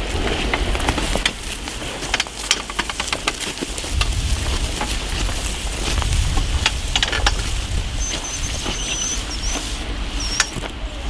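A camera dolly rolling along its track while crew walk over dry straw: irregular crunching clicks over a hiss and a low rumble, with a brief high squeak twice near the end.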